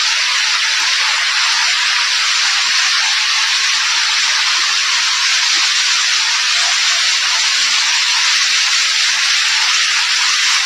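A loud, steady, even hiss with no pitch or rhythm, mostly high in range and unchanging throughout.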